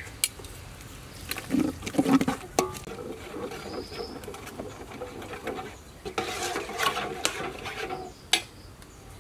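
A spoon stirring coconut cream in a large aluminium pot, scraping along the bottom with occasional knocks against the side. Animal calls can be heard in the background.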